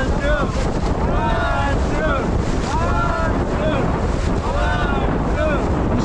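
Loud, steady rush of whitewater and wind buffeting the microphone as an inflatable raft runs a river rapid, with rafters' voices yelling over it again and again.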